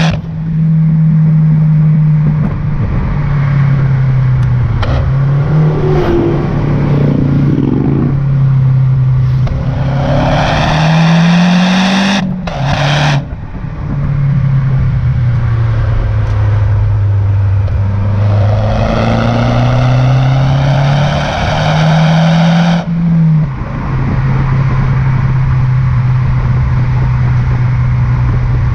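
Mazda 6 MPS's turbocharged 2.3-litre four-cylinder engine running. Twice the revs climb with a rising rush of noise, then drop back sharply.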